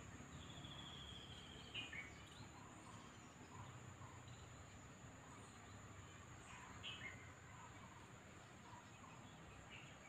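Faint garden ambience: a steady high-pitched insect drone, with a small bird giving a short trill about half a second in and brief chirps around 2 seconds, 7 seconds and near the end.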